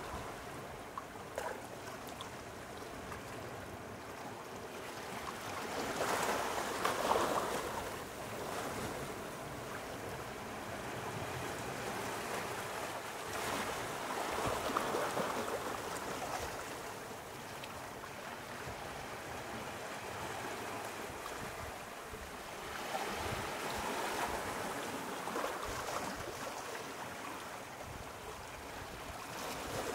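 Sea waves washing on the shore: a steady wash of surf that swells up three times, about eight to ten seconds apart.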